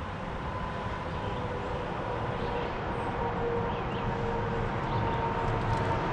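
Steady rumble of distant traffic, growing slightly louder, with a faint steady whine running through it.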